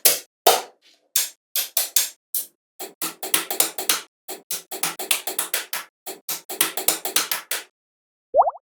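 A rapid, irregular series of sharp clicks and taps in quick clusters, broken by short silences. Near the end comes a short pitched chirp that rises and falls.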